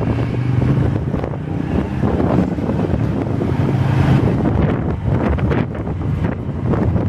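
Wind buffeting the microphone over a motorcycle engine running steadily at cruising speed; the engine's low hum fades into the wind noise about four seconds in.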